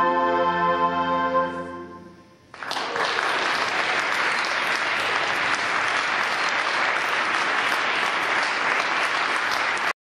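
A mixed choir holds its final chord, which fades out about two seconds in. After a brief pause the audience breaks into applause that keeps going steadily.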